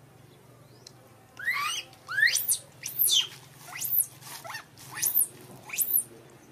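A newborn macaque crying: about six shrill squealing calls in quick succession, each sweeping up in pitch and falling away again. These are the distress calls of an infant left without its mother.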